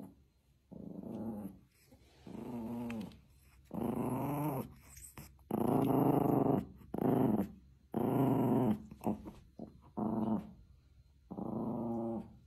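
A Pomeranian puppy and a Pomchi growling in play while tussling over a tennis ball: a run of about eight short growls, each under a second or so, with brief pauses between them.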